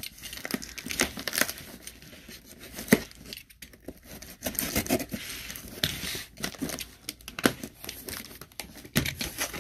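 Toy packaging being handled and opened: crinkling and tearing rustles with scattered small clicks and knocks, and one sharp click about three seconds in.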